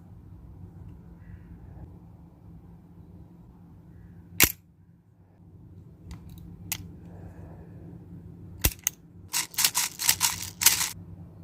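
Sharp mechanical clacks from a WE Beretta M92 airsoft pistol's action: one about four and a half seconds in, two close together near nine seconds, then a quick run of about eight more.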